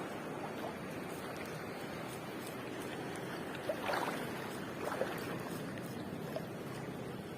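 Steady wash of sea surf, with two brief louder sounds about four and five seconds in.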